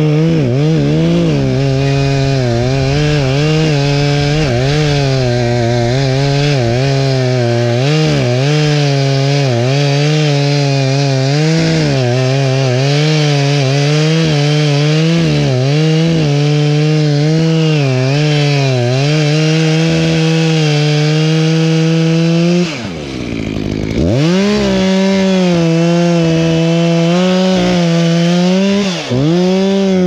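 Two-stroke gas chainsaw running at high revs while cutting into a palm trunk, its engine pitch wavering as the chain bites. About 23 seconds in, the revs fall away sharply and climb back within a second, and they dip briefly again near the end.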